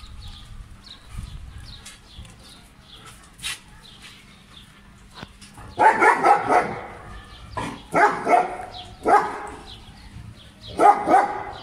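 German shepherds barking during play. The barks come in four short bouts, starting about six seconds in, with the last bout near the end.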